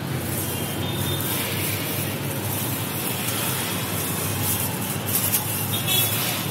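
Raw peanuts poured from a plastic jar onto a large flat iron griddle, pattering and rattling on the metal, with a cluster of sharper clicks near the end. A steady rushing noise runs underneath.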